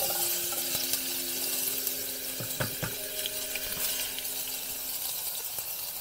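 Chopped vegetables being tipped and scraped out of a plastic container into a steel cooking pot, with a few sharp knocks a little under halfway through, over a steady hiss.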